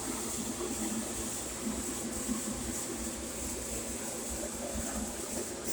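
Electric welding arc crackling and hissing steadily as a bead is laid.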